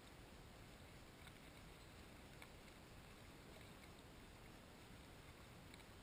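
Near silence: a faint steady hiss with a few faint ticks.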